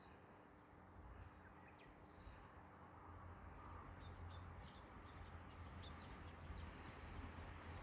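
Faint outdoor ambience: short, high chirping calls, likely insects, repeat about every second and a half over a low rumble that grows slightly louder.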